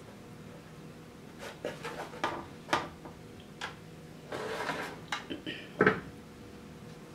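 Turkey wings being set and shifted in a metal baking pan: a run of light knocks and clatters, with a short scraping stretch in the middle and the loudest knock near the end.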